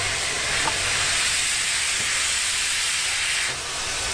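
Steam locomotive standing with steam hissing out low down by its cylinders: a loud, steady hiss that drops off abruptly about three and a half seconds in.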